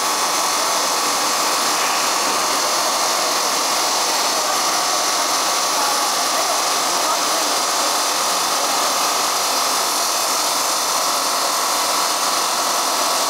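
Mitered-edge stone cutting saw running, its tilted blade cutting a bevel along the edge of a marble or granite slab: a steady, unbroken grinding noise, strongest in the upper range.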